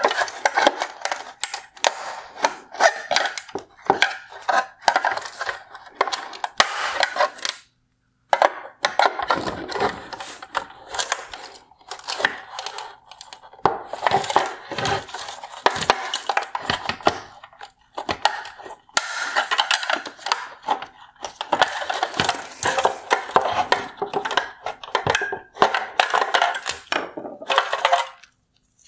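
A hand tool scraping and prying at the hard plastic of a Tesla Model 3 LED tail light housing, breaking the plastic welds that hold the main circuit board in place. Dense, irregular clicking, crackling and scraping of plastic, broken by a few short pauses.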